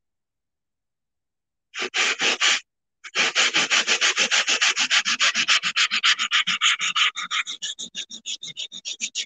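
Sanding block rubbed by hand over a ceramic tile coaster, scraping the printed wording off its surface. After about two seconds without sound, a short burst of rubbing comes, then rapid back-and-forth strokes, several a second, that grow softer near the end.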